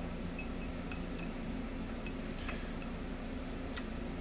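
Quiet room tone: a steady low electrical hum with a few faint light ticks.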